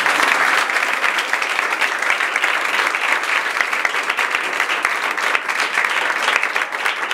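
A group of people applauding, many hands clapping steadily together.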